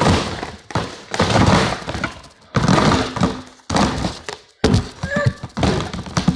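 Loud handling noise close to the microphone: a series of about six thunks and scrapes as plastic slime containers are moved about and set down.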